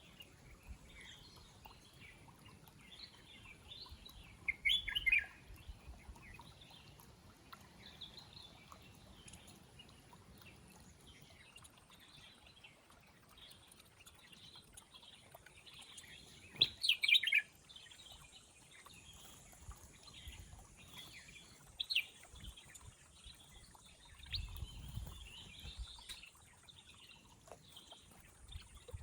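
Garden birds chirping and calling, with two louder bursts of quick falling notes about five and seventeen seconds in and a single sharp note a few seconds later. A brief low rumble comes near the end.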